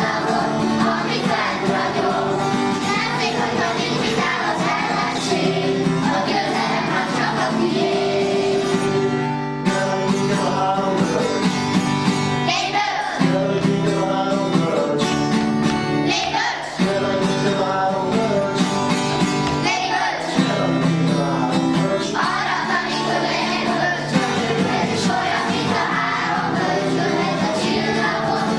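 A group of children singing a song together, with held notes and short breaks between phrases about 9 and 17 seconds in.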